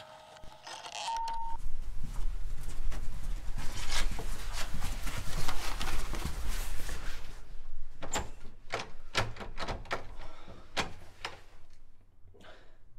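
A low rumble under a dense run of footsteps and scuffles, then a string of heavy knocks and thuds from about eight seconds in: a fist banging on a door.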